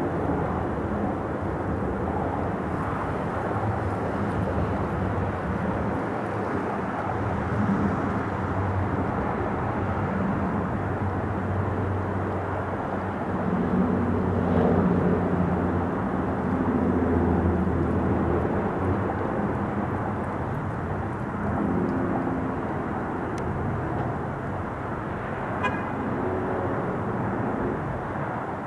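Airbus A380's four Engine Alliance GP7200 turbofans rumbling at climb thrust as the jet climbs away after takeoff: a steady roar with a low droning hum that wavers in pitch, slowly fading over the last ten seconds or so.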